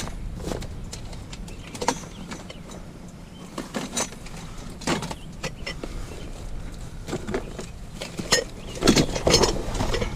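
Irregular clunks, clatters and rustling of discarded household items and boxes being handled and set down while rummaging through trash, with a louder burst of clattering about nine seconds in, over a low background rumble.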